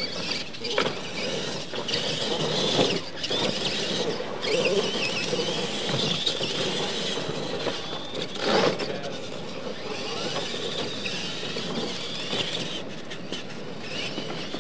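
Electric RC monster trucks racing on a dirt track: a high motor whine that wavers up and down with the throttle, over tyre-on-dirt noise. Several sharp thumps as the trucks hit and land off ramps, the loudest about three seconds in and again past eight seconds.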